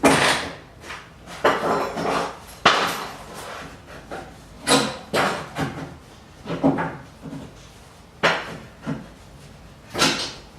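Hammer knocking nails into wood in irregular blows, some in quick runs of two or three and others a second or more apart, each with a short ring.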